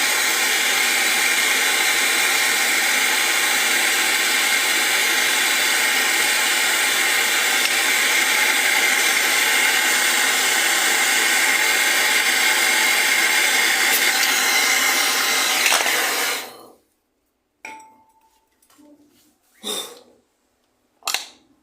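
A small electric machine runs steadily with a loud, even whir, then cuts off abruptly about three-quarters of the way through. A few light metallic clinks follow.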